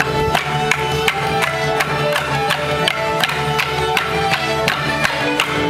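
A morris band playing a lively dance tune, led by fiddle with accordion and guitar, over a steady beat of about three to four strokes a second.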